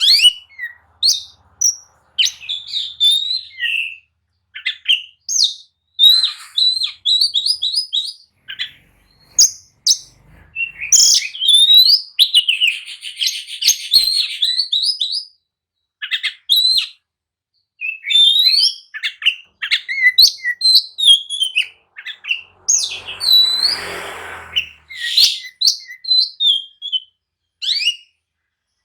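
Oriental magpie-robin (kacer) singing loudly in full, agitated song: rapid varied whistles and chirps in phrases with short pauses, with a harsh raspy passage near the end.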